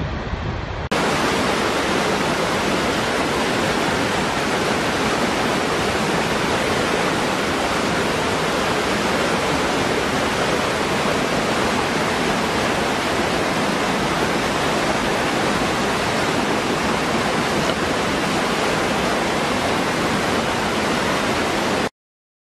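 Water rushing over a waterfall: a loud, steady, even hiss of falling water. It changes abruptly to a brighter rush about a second in and stops suddenly near the end.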